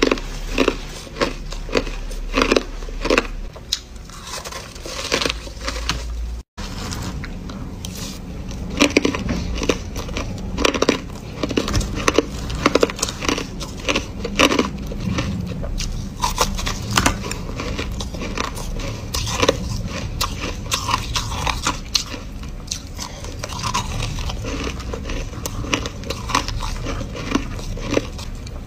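Crushed ice being bitten and chewed: many sharp, irregular crunches in quick succession. The sound drops out completely for an instant about six and a half seconds in.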